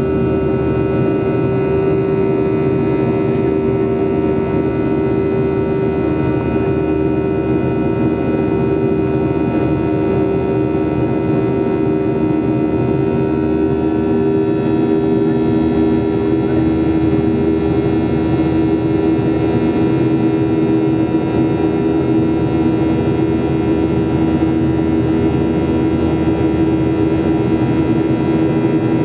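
Boeing 737-800's CFM56-7B turbofan engines heard from inside the cabin during the climb after takeoff: a steady, loud rush with a humming fan tone that drops slightly in pitch about halfway through.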